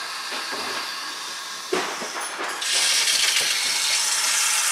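Barrier under-sink water filter with a freshly fitted cartridge, hissing as water under pressure fills it and air is pushed out. There is a short knock a little under two seconds in, and the hiss grows much louder about halfway through.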